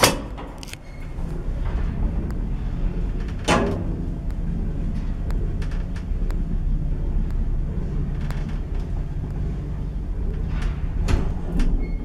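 Old Zremb passenger lift car travelling down the shaft: a steady low hum of the ride, with a sharp clunk as it sets off, another clunk about three and a half seconds in, and a few clicks near the end.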